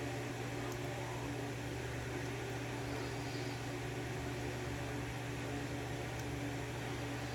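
Steady low hum with an even hiss under it, and a couple of faint ticks.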